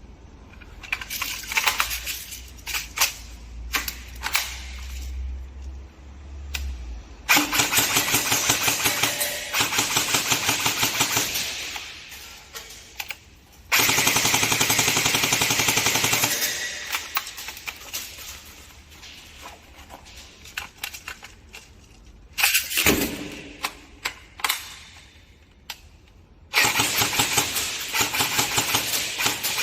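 Airsoft guns firing: scattered single shots over the first several seconds, then three long bursts of rapid full-auto fire, about seven seconds in, about fourteen seconds in, and near the end.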